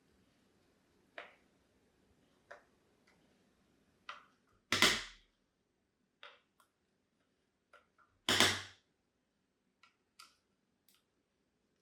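Light clicks and taps of a screwdriver and the doorbell unit being handled while the screws on the back of a Feit smart doorbell are taken out, with two louder knocks about five and eight and a half seconds in.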